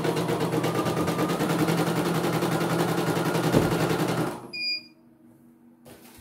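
CNY E900 embroidery machine stitching, a steady run of rapid needle strokes that stops abruptly about four seconds in, followed by a short beep. The stop and beep are the machine's signal that the thread has broken.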